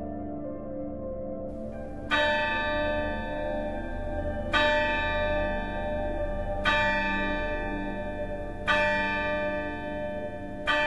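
A large bell tolling, struck five times about every two seconds, each stroke ringing on and fading, over a low steady hum.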